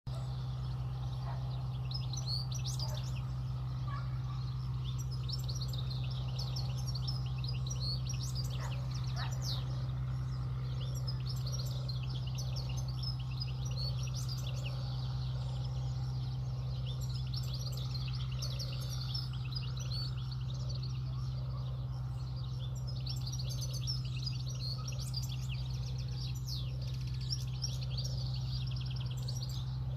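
Several European goldfinches singing and calling back and forth in quick, twittering chirps, over a steady low hum.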